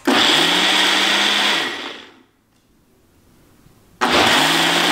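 Single-serve blender running at full speed through a jar of oats, banana and egg. It spins up and runs for about two seconds, then winds down. It starts again, spinning up, about four seconds in.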